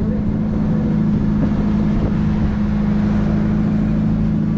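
Engine running steadily aboard a small wooden fishing boat: a constant low hum at an even pitch.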